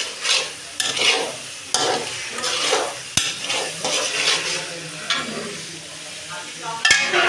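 Spatula stirring and scraping rohu fish-head pieces and spice paste sizzling in oil in a metal kadai, in repeated strokes a little more than one a second, with one sharp click about three seconds in. The masala is at the bhuna stage, nearly cooked down.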